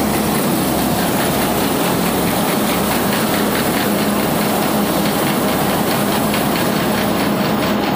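Tractor-driven mobile rice mill running steadily: a loud, continuous machine noise with a steady hum and a fast rattling from the milling machinery.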